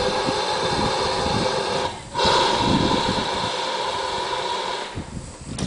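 Replica 1802 steam locomotive letting off a steady hiss of steam. The hiss breaks off briefly about two seconds in, comes back louder, and dies down about five seconds in.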